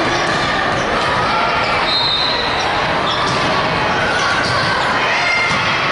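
Volleyball rally in a large sports hall: a steady din of voices and players' calls echoing in the hall, with ball hits and a few short, high sneaker squeaks on the court floor.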